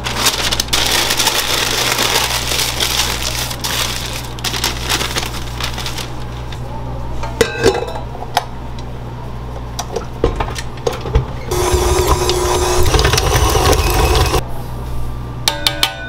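Baking prep in a kitchen: scraping, rustling and scattered clinks and knocks of utensils and pans over a steady low machine hum. A louder whirring stretch comes about twelve seconds in.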